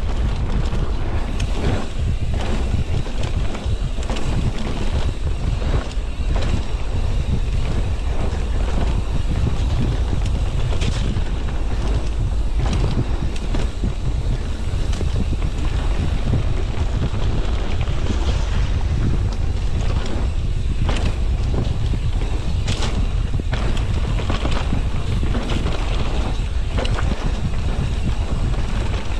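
Wind buffeting the camera microphone of a mountain bike riding fast down a dirt trail, with scattered knocks and rattles from the bike and tyres over the bumpy ground.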